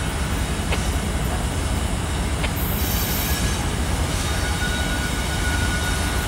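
Steady low rumble of an approaching loaded coal train led by GE ES44AC diesel locomotives, with a faint thin high tone of wheel squeal and a couple of light ticks.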